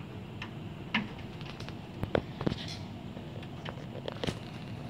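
Hailstones hitting the window in irregular sharp clicks and knocks over a steady hiss of heavy rain, the hardest hits about a second in, twice in the middle and once near the end.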